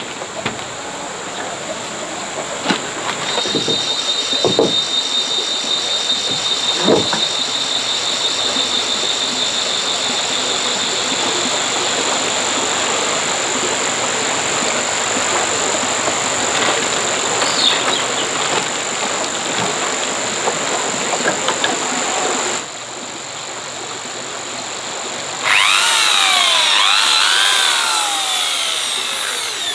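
A steady rushing noise with a high steady whine and a high pulsing buzz, then, after a break, a louder power drill running, its pitch rising and falling over and over as it drives screws.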